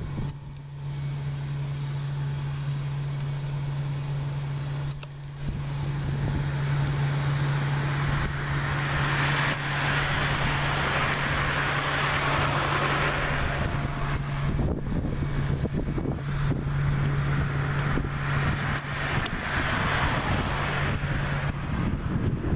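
McDonnell Douglas MD-90-30 jet airliner's two rear-mounted IAE V2500 turbofans at takeoff power: a steady low drone under a rushing jet noise that swells and eases twice as the aircraft passes.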